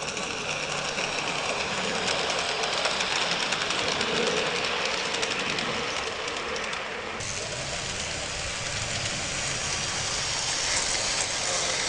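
USA Trains ALCO PA-1 large-scale model locomotive running on its track: steady wheel and motor noise with rapid fine clicking from the wheels on the rails. The higher clicking stops about seven seconds in, leaving a lower rumble.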